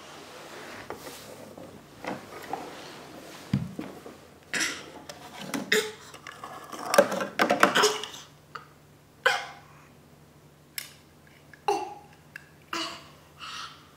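Large plastic toy building bricks clacking and knocking together in scattered bursts as a baby handles them, with a few short baby vocal sounds.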